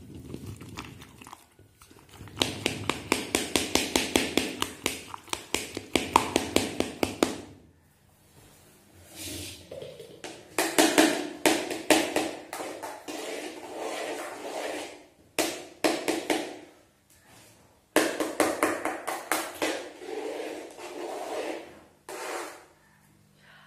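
Metal spoon stirring chopped snap melon and sugar in a steel pot, clinking and scraping against the pot's side at about five strokes a second. The stirring comes in three spells with short pauses between them.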